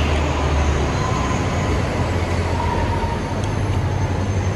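Loud, steady low rumble of heavy traffic beneath a railway bridge, with a faint high whine through the middle.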